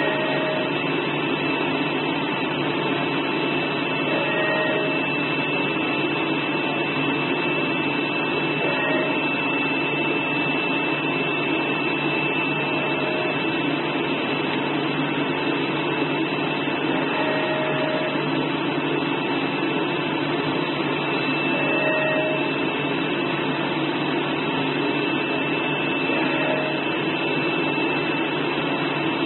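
CNC flatbed blade cutter running: a steady rushing hum, typical of the vacuum blower that holds the sheet to the bed, with a steady high whine, and short motor whines recurring about every four seconds as the cutting head and gantry move.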